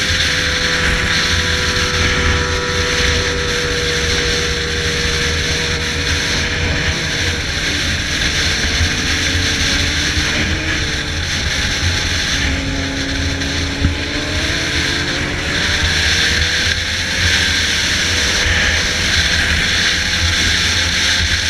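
Yamaha XJ6's inline-four engine with an aftermarket 4-into-1 exhaust running on the move, its note gliding faintly up and down, under heavy wind rush on the microphone.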